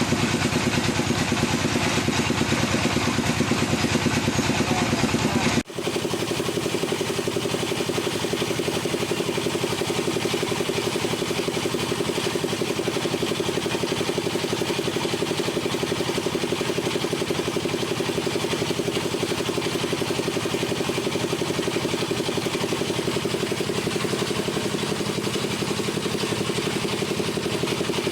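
Wood lathe running steadily. It cuts off abruptly about six seconds in and goes straight on into a similar steady machine sound.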